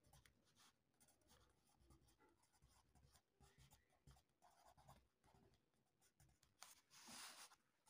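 Faint scratching of a pencil writing on paper, a run of short strokes, with a longer, louder scratch near the end.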